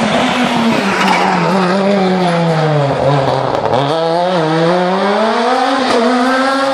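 Rally car engine on an asphalt special stage, its pitch falling steadily for about three seconds as the car slows into a corner, then rising again as it accelerates out. Tyres squeal through the corner.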